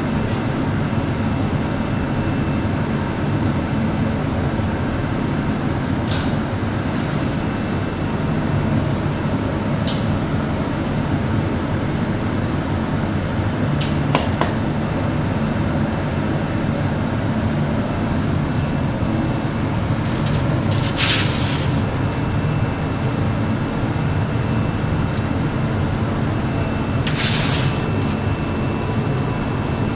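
Steady low roar of a glassblowing studio's gas-fired glory hole, with a few light clicks and two short bursts of hiss, one about 21 seconds in and one about 27 seconds in.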